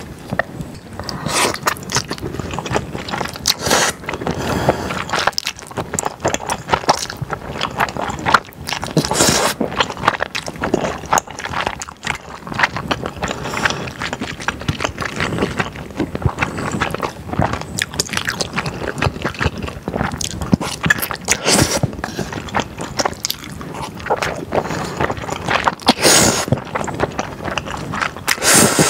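Close-miked chewing and slurping of stir-fried yakisoba with thick, slippery glass noodles: a dense run of wet clicks, smacks and sucking sounds.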